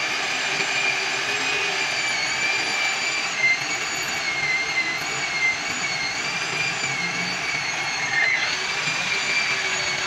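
Heavy corded electric drill running under load, boring into the steel plate of a truck's chassis: a steady motor whine whose pitch wavers slightly.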